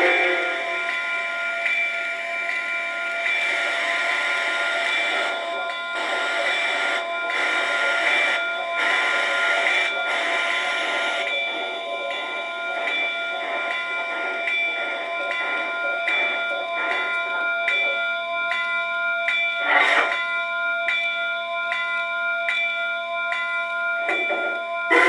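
Sound decoder of a Bachmann C-19 large-scale model steam locomotive playing steam-locomotive sounds through its speaker. A locomotive bell rings steadily in repeated strikes, with short whistle toots at the start, about 20 seconds in and near the end.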